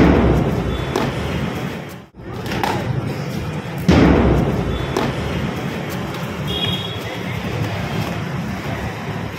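Two loud, booming thuds, the first at the start and the second about four seconds in, each ringing out for about a second over steady background noise.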